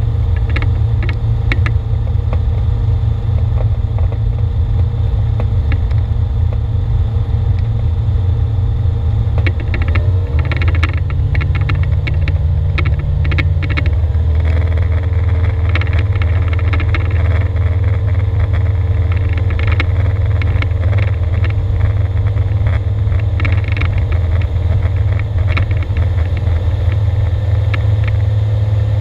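Czech SportCruiser's Rotax 912 flat-four engine and propeller running steadily, heard inside the cockpit as a loud low drone. The engine note rises about ten seconds in and steps up again a few seconds later, then holds.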